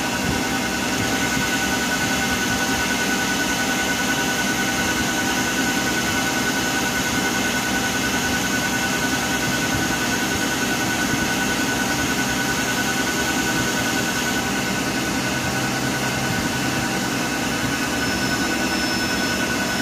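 CNC lathe running steadily, its spindle hum full of steady tones, while the insert takes its first turning cut along a 50 mm bar under power feed.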